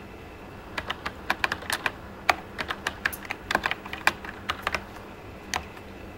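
Typing on a Toshiba T3200SX laptop keyboard: about twenty quick key clacks in irregular bursts as a DOS command is keyed in, with a last lone keystroke near the end.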